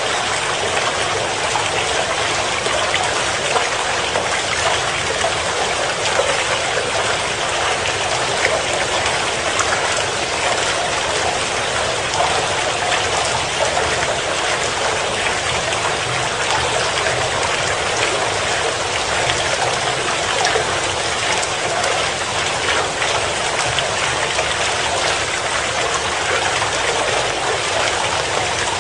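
Steady, even hiss of water noise, like a rain or stream soundtrack, with no speech or music over it.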